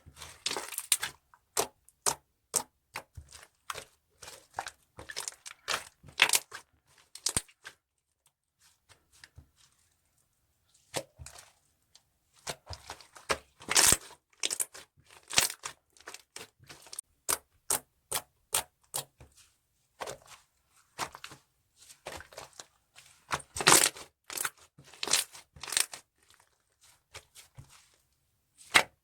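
Banana milk slime being squeezed, stretched and poked by hands, giving clusters of sharp wet clicks and crackling pops. There is a pause of about three seconds some eight seconds in, and another short lull near the end.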